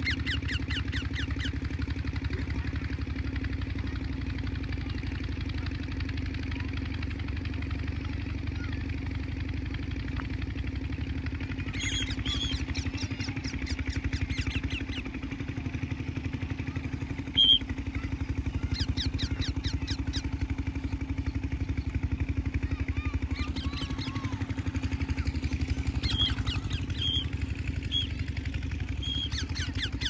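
An engine running steadily nearby, giving an even low drone throughout. Short bursts of rapid, high-pitched pulsing come and go several times, and one brief sharp sound stands out about seventeen seconds in.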